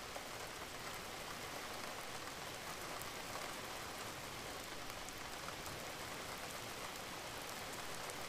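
Steady rain falling: an even hiss with scattered drops ticking.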